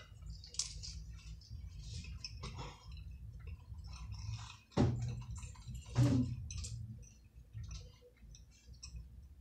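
Eating sounds at a table: chewing, and small clicks of a knife and fork against a plate, with two louder short knocks about five and six seconds in.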